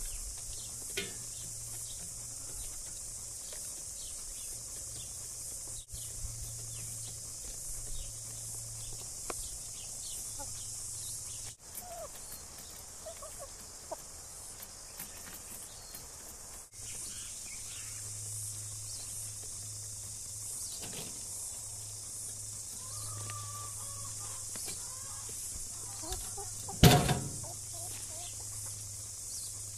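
Chickens clucking now and then over a steady, high insect chorus, with one loud knock near the end.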